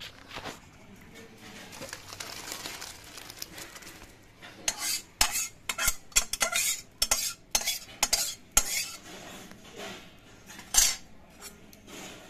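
Metal ladle scraping and clanking against an iron kadai and a steel bowl as cooked chana dal is emptied out: a quieter first few seconds, then a quick run of sharp scrapes and clinks from about a third of the way in, and one loud clank near the end.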